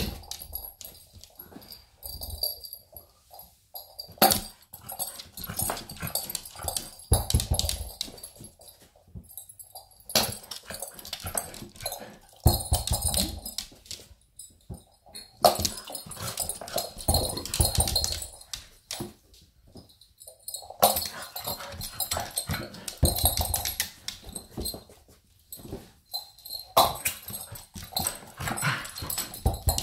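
Husky-kelpie cross dog making noises in repeated bursts every few seconds, with sharp knocks among them as it lunges to catch hard throws.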